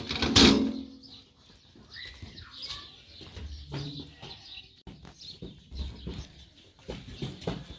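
A sharp knock about half a second in, followed by scattered small knocks and short bird calls.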